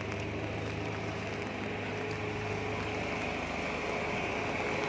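Motor vehicle engine humming steadily on a rain-wet street, over the hiss of rain and wet road, slowly getting louder.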